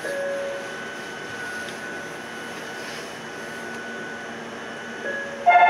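Steady whirring hum of an Ohmi Railway electric train's on-board equipment, with no wheel or rail-joint clicks. A short beep sounds at the start and again about five seconds in, and near the end a loud electronic chime begins.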